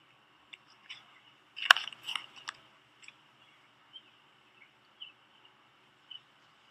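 Faint outdoor ambience from a phone recording: a steady high-pitched drone with a few sharp clicks in the first half and short chirps about once a second after that.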